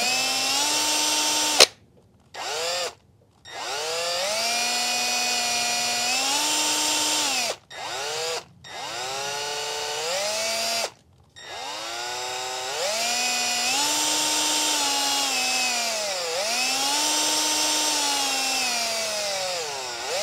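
Cordless drill triggered in about six separate runs, spinning a vehicle speed sensor's shaft to test its output: each time the motor's whine rises in pitch as it speeds up, holds, and falls as it slows, with short pauses between runs and one sharp click just under two seconds in. Near the end the speed dips and picks up again twice.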